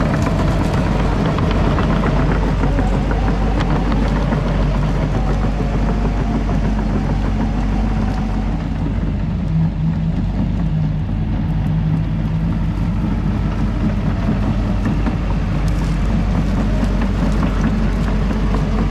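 Cat 313F excavator's diesel engine running steadily at an even pitch as the machine drives in.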